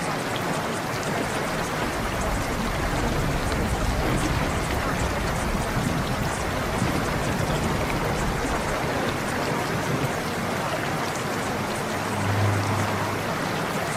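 Cave water ambience: a steady rush of water with scattered light drips.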